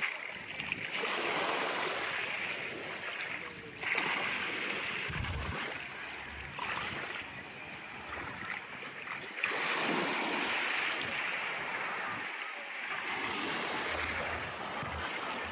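Surf washing onto a sandy beach, the rush of the waves swelling and easing every few seconds.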